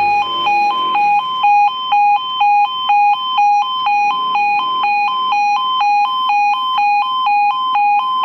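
Level crossing audible warning alarm sounding as the crossing closes for a train: a loud two-tone electronic warble that alternates between a lower and a higher pitch about twice a second, steady throughout.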